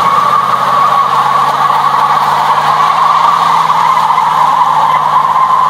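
1978 Pontiac Trans Am's 403 V8 held at high revs in a burnout, its rear tyres spinning on the tarmac with a steady high squeal over a steady engine note. It is very loud.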